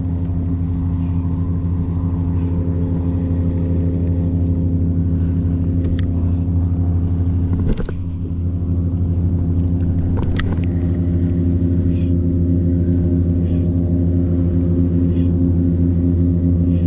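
An engine running steadily at one unchanging pitch, likely a motorboat's, with a couple of sharp knocks about six and ten seconds in.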